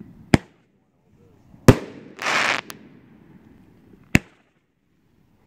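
An eight-shot Roman candle firing: four sharp bangs spread a second or more apart, with a short hiss of about half a second a little after the second bang.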